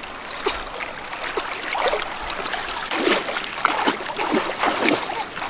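River water splashing and sloshing around the legs of someone wading through the shallows, with water pouring and trickling out of a lifted woven bamboo basket. The splashes come thickest from about two seconds in.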